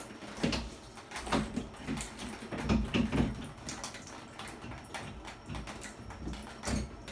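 A kitten's paw dabbling in the water of an inflatable baby bath: irregular small splashes and pats, several in quick succession in the first half and one more near the end.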